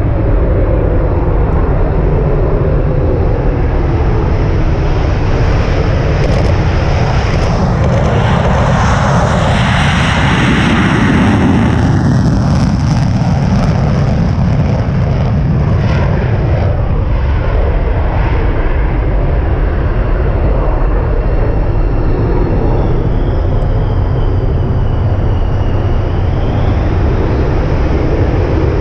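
F-16 fighter jet's single jet engine roaring loud and steady at takeoff power, swelling to its loudest about ten seconds in, with gliding whining tones as the jet moves.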